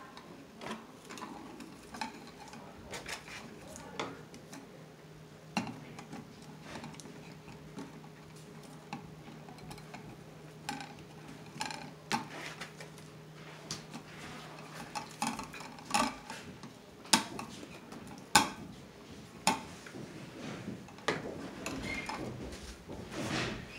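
Irregular small clicks and metallic clinks of electrical wires and hand tools being worked at an outlet box, a few sharper clicks a little after the middle.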